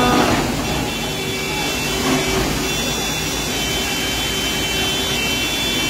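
Heavy diesel machinery, a Volvo excavator and an army recovery truck, running steadily under load over the rush of a mountain stream, with a steady high whine; a short rising call right at the start.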